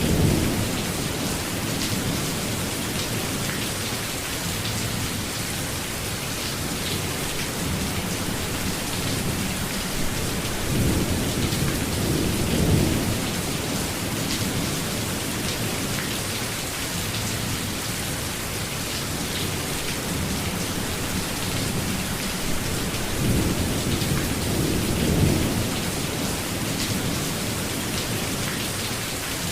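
Steady heavy rain pouring down, with low rolls of thunder rumbling three times: at the start, about midway and near the end.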